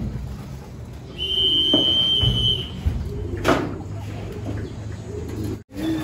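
Racing pigeons cooing, with one steady high whistle about a second in that lasts about a second and a half, and two sharp knocks.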